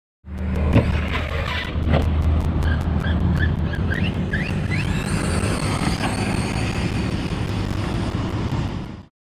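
Redcat Shredder 1/6-scale brushless electric RC truck: a sharp thump about a second in as it lands from a jump, another about two seconds in, then its motor and drivetrain whining in short rising pulses with the throttle. A steady low rumble runs underneath throughout.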